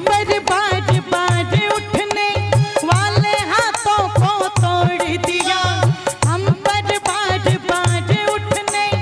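Instrumental music: a wavering, ornamented melody over a steady hand-drum beat of about two strokes a second.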